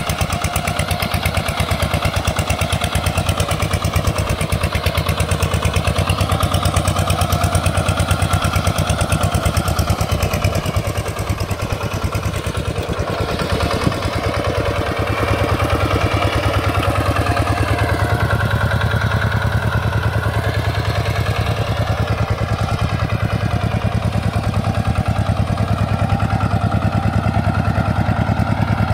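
Hand tractor's single-cylinder diesel engine running steadily with a rapid, even chugging.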